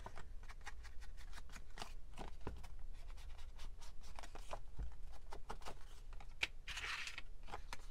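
Ink blending tool rubbed and dabbed along the edges of paper: a run of quick, light scratchy strokes, with a longer brushing swipe near the end.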